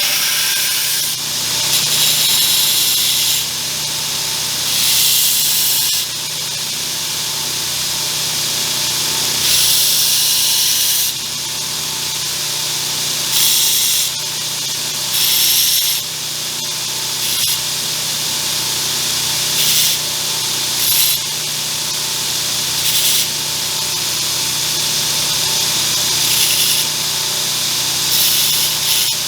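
Electric grinder running steadily while steel is pressed against it in short passes, each giving a burst of hissing grit that lasts a second or two, about a dozen times.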